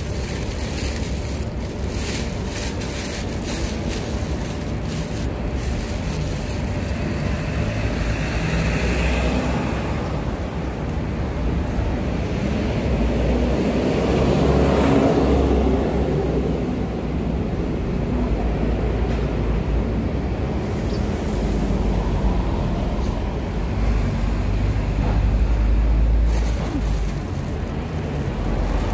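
Steady road traffic noise, with a louder swell about halfway through as a vehicle passes close.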